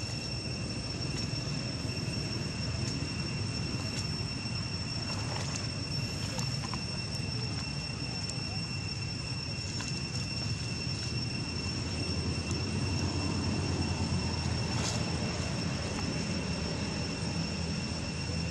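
Steady outdoor ambience: a constant high-pitched insect drone over a low continuous rumble, with a few faint rustles of dry leaves.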